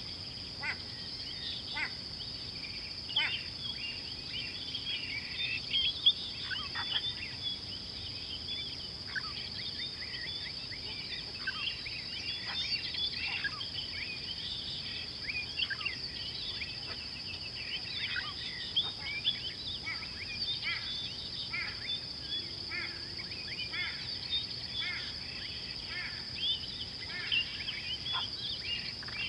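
Wild birds chirping and calling in many short, quick notes, over a steady high-pitched insect drone.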